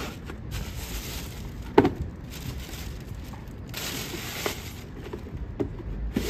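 Tissue paper rustling and crinkling in several spells as a cardboard shoe box is handled, with a sharp knock about two seconds in.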